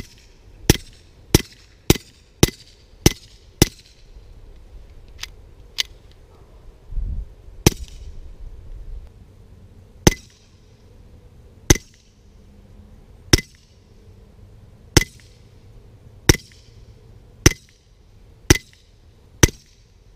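Suppressed .22 LR pistol, a GSG Firefly with a SilencerCo Warlock 2 suppressor, firing. It fires a quick string of seven shots in under four seconds, then nine more shots spaced one to two seconds apart. There is a brief low thump about seven seconds in.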